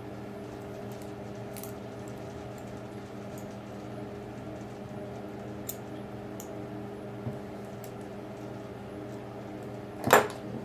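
Scattered light clicks of small metal lathe parts being handled, over a steady background hum, then one loud sharp clack near the end as the mini-lathe apron's half-nut handle is worked.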